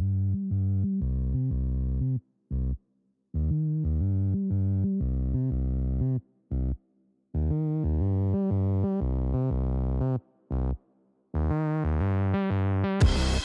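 Electronic outro music: low synthesizer chords held in short chopped blocks, broken by brief silent gaps. The sound grows brighter over the last few seconds, and a loud hit arrives right at the end.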